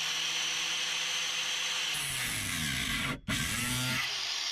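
Angle grinder cutting a notch into a motorhome's window-frame flange: a steady grinding hiss over the motor's whine, its pitch wavering under load. It cuts out for a split second a little past three seconds in, then grinds on.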